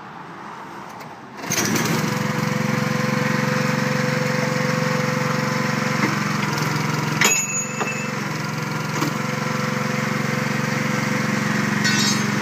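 Small gasoline engine of a portable hydraulic rebar cutter-bender starts about a second and a half in and runs steadily. About seven seconds in, one sharp crack as the steel rebar is sheared.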